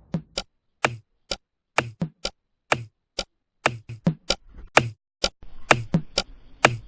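Sharp knocks in an uneven series, roughly two to three a second, each short with a brief low thud beneath the click.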